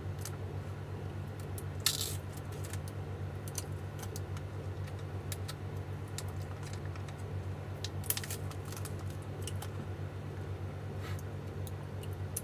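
Scattered small metallic clicks and taps as meter probes touch the cell-group connections of a lithium-ion e-bike battery pack, one sharper click about two seconds in, over a steady low hum.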